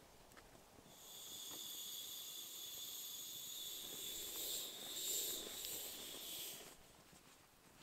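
Air hissing out of an inflatable sleeping pad's valve as the pad is pressed flat: a steady high whistling hiss that starts about a second in and stops shortly before the end.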